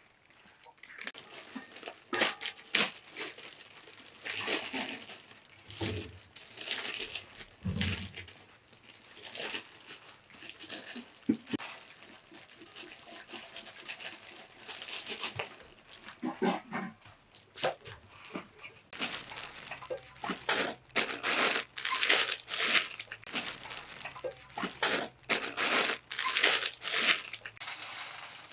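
Irregular rustling and crinkling, as of material being handled, in many short uneven bursts, busier and louder in the second half.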